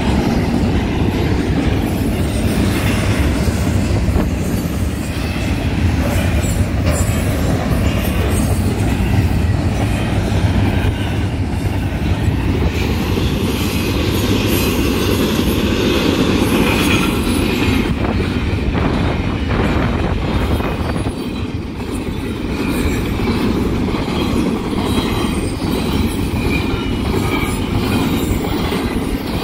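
Union Pacific intermodal train's double-stack container well cars rolling past: a steady rumble and clatter of steel wheels on the rails.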